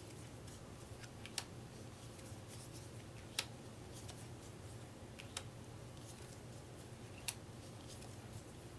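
Sushi Go playing cards counted out one at a time, each laid down with a short, sharp click about every two seconds, with fainter ticks of handling between them. A faint steady hum lies under it.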